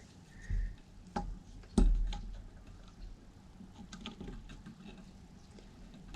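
Handling noise from an air compressor's hose fitting being gripped and tried for turning: a few light knocks and clicks in the first two seconds, then faint scattered ticks.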